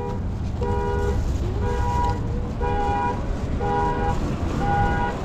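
A short electronic beep repeating about once a second, each beep a two-note tone, over a steady low rumble of wind and traffic.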